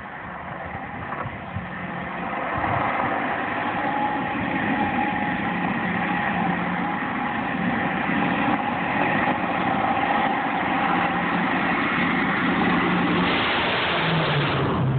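E-2 Hawkeye's twin T56 turboprop engines and eight-bladed propellers running with a steady hum that grows louder as the aircraft approaches low with its gear down. Near the end it passes right overhead: the sound swells to a loud rush and the propeller tone drops in pitch.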